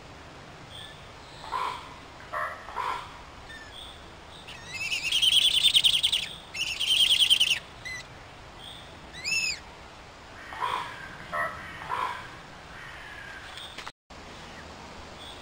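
Siberian eagle-owl calls: two loud, harsh, rasping calls about five and seven seconds in, typical of an eagle-owl chick begging. Shorter calls and a quick chirp are scattered around them.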